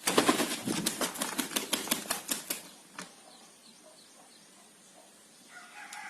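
A rooster flaps its wings hard in a rapid run of wingbeats, about six a second, for some two and a half seconds, loudest at the start. A faint pitched call follows near the end.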